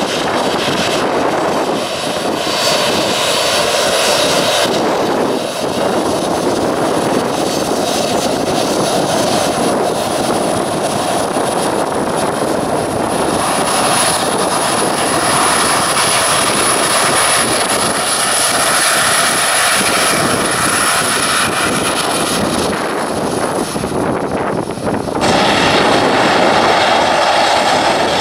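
Boeing 737's jet engines running at taxi power, a steady engine noise with a high whine over it. About 25 seconds in the sound changes abruptly to a BAe ATP turboprop's engines and propellers taxiing.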